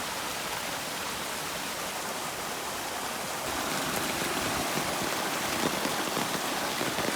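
Heavy rain pouring steadily, mixed with the rush of running water, growing a little louder about halfway through.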